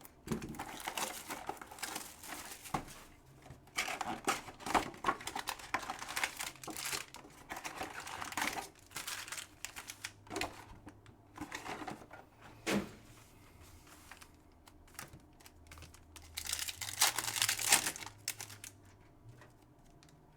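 Wrappers of 2022 Select football card packs crinkling and tearing as the packs are ripped open and the cards handled, in irregular bursts with short pauses.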